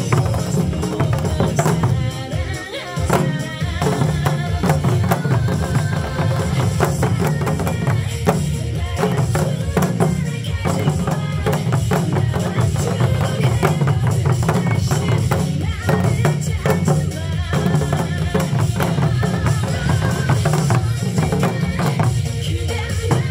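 An ensemble of Korean buk barrel drums on stands, beaten with sticks in a fast, steady rhythm, with a brief dip in loudness about two seconds in.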